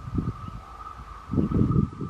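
Wind gusting on the microphone in uneven low bursts, the biggest near the end, over a steady thin whine from the approaching electric train.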